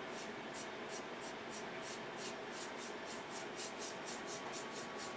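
Paintbrush brushing wet paint onto a wooden plaque: quick, soft back-and-forth bristle strokes, about five a second.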